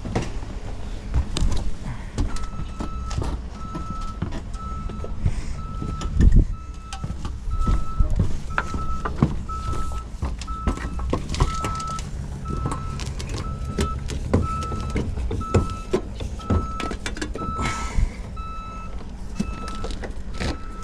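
Tow vehicle's engine running while it backs up, with a short warning beep repeating about once a second and scattered knocks and clunks.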